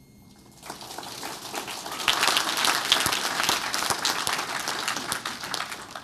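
Audience applauding: the clapping starts about half a second in, swells to its loudest after a couple of seconds, and dies away near the end.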